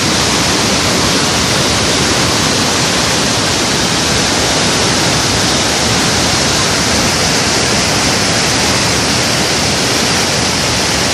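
Waterfall: a loud, steady rush of falling water, unchanging throughout.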